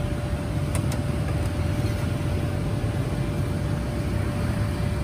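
Steady street-traffic noise of motorbikes passing on a busy road, with a steady thin hum underneath and a few light clicks in the first second and a half.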